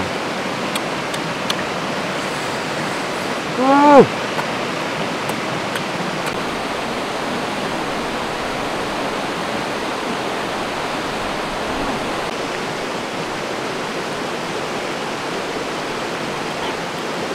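Rushing stream water tumbling over rocky rapids in a steady hiss. About four seconds in, the man eating gives one short, loud vocal exclamation whose pitch rises and then falls.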